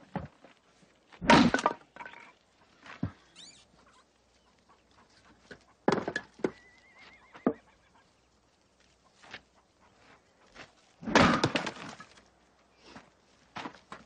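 Axe splitting firewood on a chopping block: a few heavy strikes several seconds apart, each a sharp thunk with the crack of the log splitting, with lighter knocks between.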